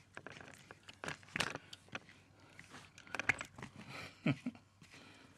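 Close handling noise of a cat rubbing and bumping against the recording device: scattered clicks, scrapes and rustles, with a short low falling sound about four seconds in.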